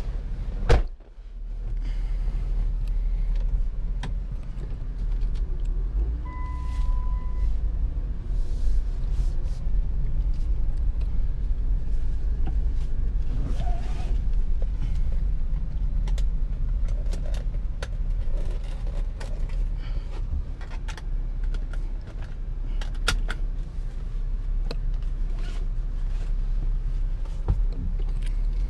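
2004 Chrysler Town and Country minivan running, a steady low rumble, after a sharp thump about a second in. A single clear beep about a second long sounds around six seconds in, with scattered light clicks and knocks throughout.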